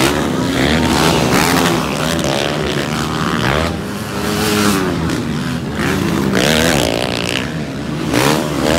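Dirt bike engines revving as motocross bikes ride past on the track, their pitch rising and falling through the gears, with several passes one after another.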